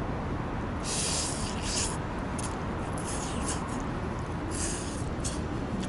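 Steady roadside traffic rumble, with about five short hissing rustles close to the microphone, the longest about a second in and another near the end.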